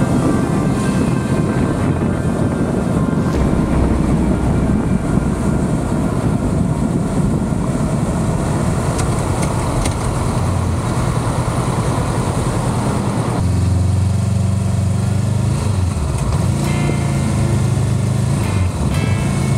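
Honda CBR500R parallel-twin engine running while the bike is ridden in traffic, heard together with wind rush at the camera. About two-thirds of the way through, the wind rush drops away and the engine's low, steady hum comes forward.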